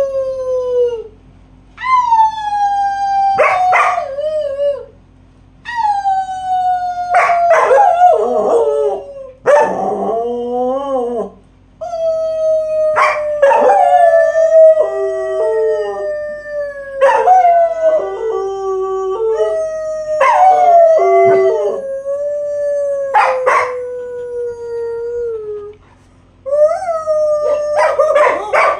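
Black German Shepherd howling in a run of long howls, each starting high and sliding down, with a woman howling along beside it so that their voices at times overlap.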